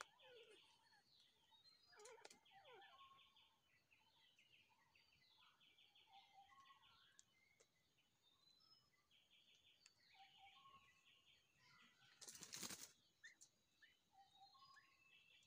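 Small birds calling faintly: repeated short, rapid chattering trills and scattered lower whistled notes. A brief noisy rustle about twelve seconds in is the loudest moment.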